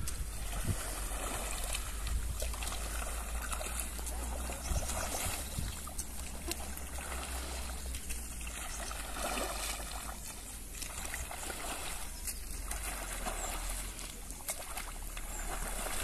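Water and mud sloshing as a long-handled hoe is dragged and pushed through a flooded rice paddy, in repeated strokes every second or two.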